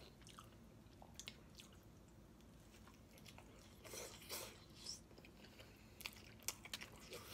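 Faint close-up eating sounds: soft chewing with small mouth clicks and smacks, and a louder bite into a slice of pizza about four seconds in.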